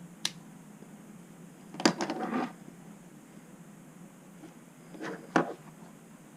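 Handling noises: a light click, then a sharp knock followed by a short rattle about two seconds in, and a soft rattle ending in another sharp click a little after five seconds.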